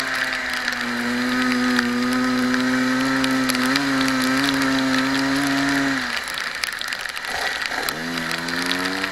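Racing kart engine heard from on board, running at high revs with a steady buzzing note for about six seconds, then falling away as the driver lifts off, and picking up again, rising, near the end. A constant hiss of wind and tyre spray on the wet track runs underneath.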